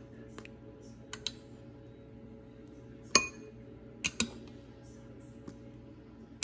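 A metal spoon clinking against a glass bowl and glass baking dish while scooping food: several sharp clinks, the loudest about three seconds in with a brief glassy ring, then a quick pair a second later and another near the end.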